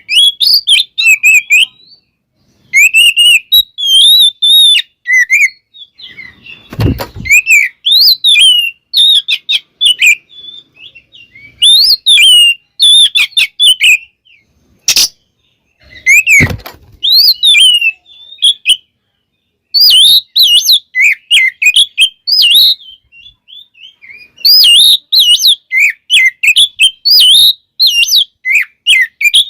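Oriental magpie-robin singing loudly in rapid bursts of varied whistles and chattering notes, a song packed with imitated phrases. Two dull thumps, about 7 and 16 seconds in, and a sharp click in between.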